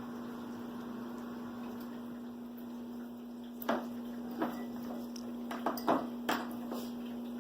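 Handling noise while treats are tucked into a fabric dog activity mat: about half a dozen light clicks and taps in the second half, over a steady low hum.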